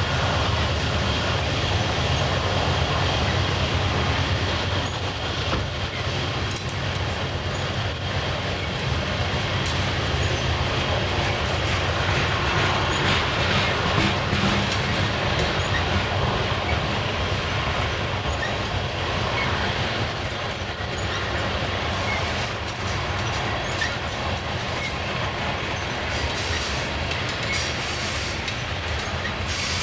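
Coal train's open-top hopper cars rolling past in a steady stream: the continuous rumble and rattle of steel wheels on the rails.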